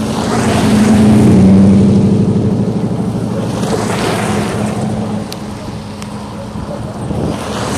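Cars passing close by on the road: a loud pass with engine drone swelling and peaking about a second and a half in, then another car rushing past around four seconds in with tyre and wind noise.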